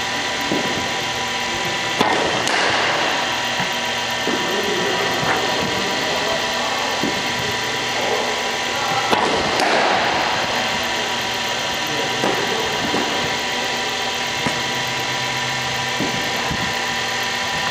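An engine running steadily, with a sharp knock about two seconds in and another about nine seconds in.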